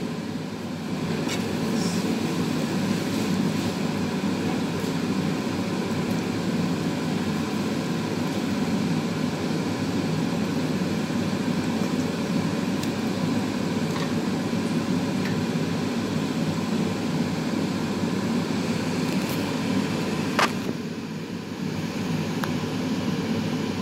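Steady low rushing noise at the stove as a shrimp and potato stir-fry cooks in a frying pan. A few light knocks of a wooden spatula on the pan, the sharpest about twenty seconds in.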